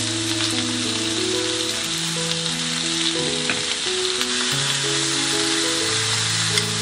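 Chicken breast pieces, onion and Brussels sprouts sizzling steadily as they fry in a pan, over background music.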